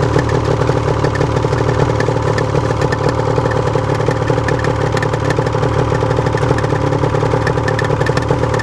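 A small vehicle's engine running steadily at an even speed, with a fast, rough pulse and no revving.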